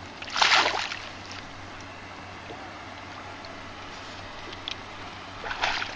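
Two short splashes of water, one about half a second in and one near the end, over steady wind and lapping water.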